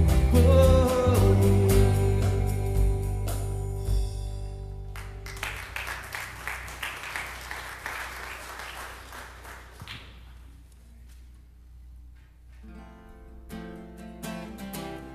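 A worship band's song ends on a held, fading chord, then the congregation applauds for about four seconds before the clapping dies away. Near the end a guitar starts picking out the opening of the next song.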